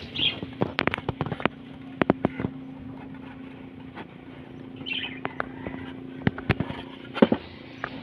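Irregular sharp wooden knocks and taps as plywood nest box pieces are handled and set down on a concrete table, in small clusters, with a steady low hum behind them. Two short bird chirps, about a third of a second in and about five seconds in.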